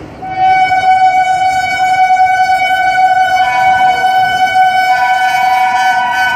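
Indian Railways locomotive air horn sounding one long, loud blast that starts about a second in, with a second note joining about halfway through to make a chord.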